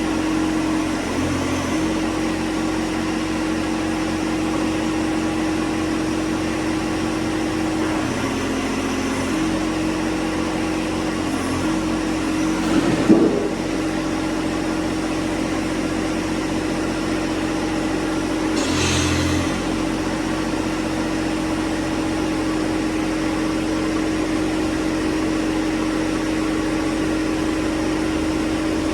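John Deere 1025R compact tractor's three-cylinder diesel engine running steadily, its note dipping briefly a few times. A short clunk comes about halfway through, and a brief hiss about two-thirds of the way through.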